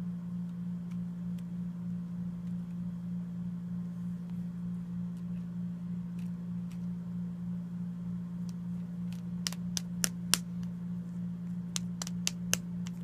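Steady low hum throughout, with a run of about ten sharp clicks and taps in the last few seconds, the sound of something hard being handled.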